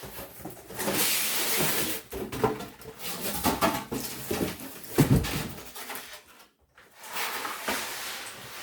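Packaging and a compact refrigerator being handled: rustling and scraping with scattered knocks, and a heavy thump about five seconds in.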